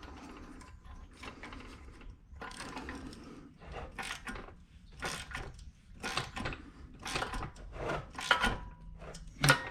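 Socket ratchet clicking in a series of short strokes as a new spark plug is threaded in and tightened.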